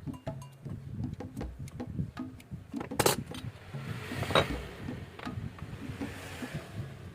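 Light metallic clinks and clicks, as of small fishing-reel parts being handled, with two sharper clicks about three and four and a half seconds in.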